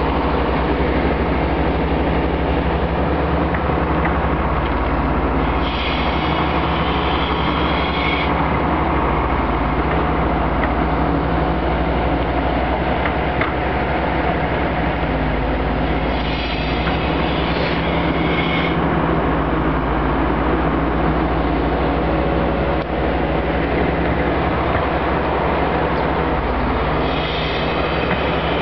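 Terex Atlas tracked excavator's diesel engine running steadily under load as it digs, with a high squealing hiss rising over it three times for two to three seconds each.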